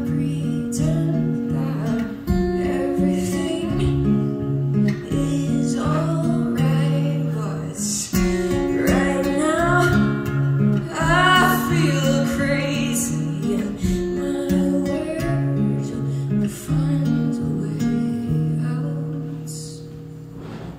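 Live acoustic guitar played in a steady picked pattern, with a woman singing over it through the middle; near the end the guitar settles on a long ringing chord that dies away.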